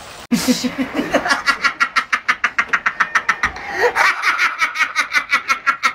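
A man laughing hard in a rapid, rhythmic cackle of about six bursts a second, breaking off about three and a half seconds in to gasp for breath, then cackling on.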